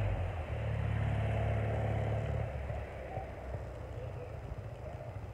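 Low, steady engine rumble, as from a motor vehicle, that drops away about two and a half seconds in and then fades.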